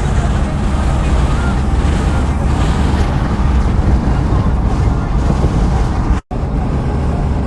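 Loud, steady engine drone with rushing wind noise, heard from inside a moving vehicle; it cuts out for an instant about six seconds in, then carries on.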